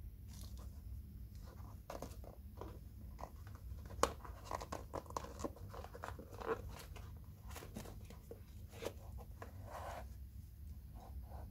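Handling noise of a canvas sneaker: soft rustles, creaks and clicks as the shoe is bent and its insole pulled up, with one sharper click about four seconds in, over a steady low hum.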